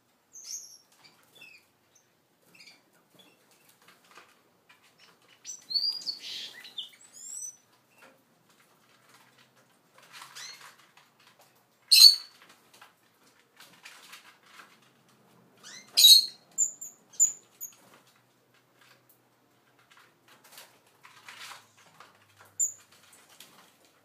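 Seagreen parrot finches giving short high chirps now and then, with scattered light clicks and pecking as they feed in a wire cage. The loudest sounds are two sharp clicks, about halfway through and about two-thirds of the way through.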